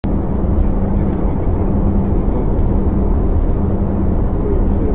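Car driving at speed, heard from inside the cabin: a steady low rumble of engine and tyre noise with a steady low hum under it, cutting in suddenly.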